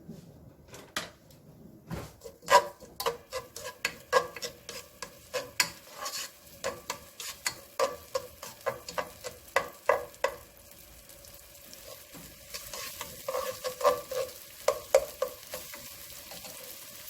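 Spoon stirring in a frying pan, knocking against the pan about two or three times a second, over onion and garlic frying in oil. The stirring pauses after about ten seconds, comes back briefly, and the sizzling gets louder near the end.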